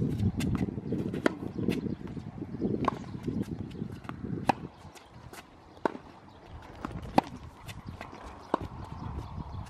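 Tennis balls struck by racquets and bouncing on an outdoor hard court during a baseline rally: a series of sharp pops and knocks at uneven spacing, over a low rumble in the first few seconds.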